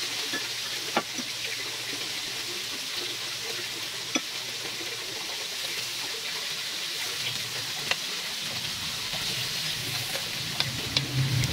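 Marinated chicken fillets sizzling steadily on an electric grill plate, with a few sharp clicks of metal tongs against the grill as the pieces are turned.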